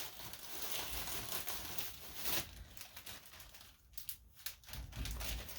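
Hands rummaging through loose items in search of a marker: irregular rustling and crinkling with light knocks, dropping off briefly a little past the middle.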